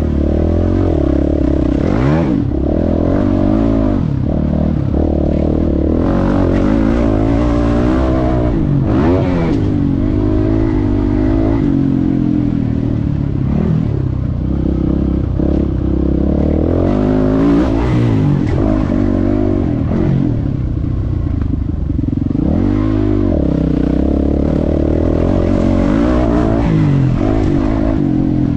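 Motocross bike engine heard from on the bike, revving hard and dropping back over and over as the throttle is worked through the track's corners, jumps and gear changes, with the rattle of the bike over rough ground.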